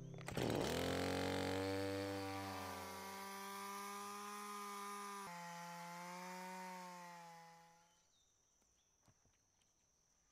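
Stihl chainsaw starting with a short burst of noise, then running steadily as it cuts a log. Its pitch shifts suddenly about five seconds in, and the sound fades out about eight seconds in.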